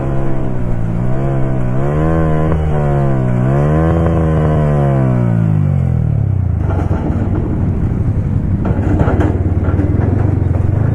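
Yamaha R15's single-cylinder engine under the rider, its pitch rising and falling with the throttle, then dropping steadily for a second or two as the bike slows from highway speed. After that it runs rougher and lower at crawling speed, with a few brief throttle blips.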